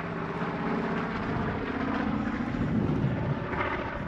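de Havilland Canada DHC-4 Caribou flying past overhead: its two Pratt & Whitney R-2000 Twin Wasp radial engines and propellers make a steady, deep, many-toned drone. It grows louder towards about three seconds in, where the pitch dips as the aircraft passes.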